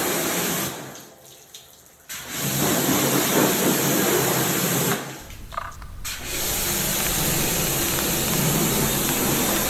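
Water spraying in a steady hiss while a split air conditioner is washed. It stops twice for about a second and starts again.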